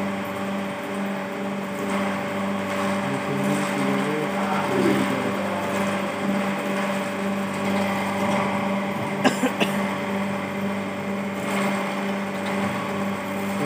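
Cylinder boring machine cutting a bore in a Maruti Suzuki Eeco four-cylinder engine block, its spindle motor giving a steady hum. A couple of sharp clicks come about nine seconds in.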